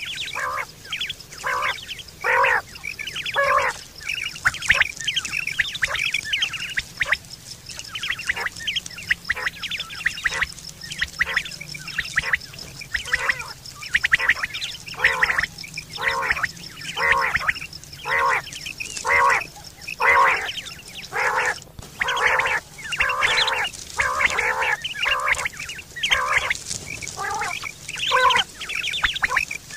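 Quail (batair) calling over and over: short calls, roughly one or two a second. A steady high-pitched buzz runs behind them and breaks off about two-thirds of the way through.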